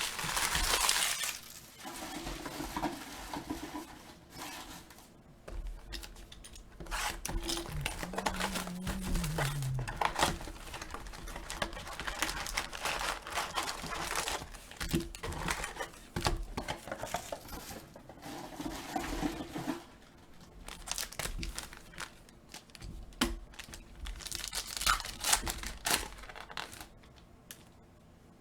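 Plastic wrapping of a trading card box and its packs being torn open and crinkled by hand, in irregular bursts of rustling.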